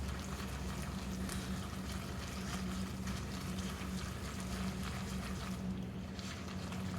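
Plastic fork stirring microwaved macaroni and cheese: soft wet squishing and small scrapes, over a steady low hum.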